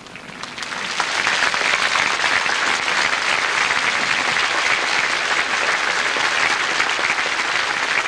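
Large crowd applauding, building up over the first second and then holding steady.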